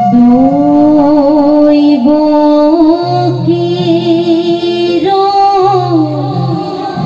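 A woman singing a Dihanam, an Assamese devotional song, holding long notes that slide from pitch to pitch.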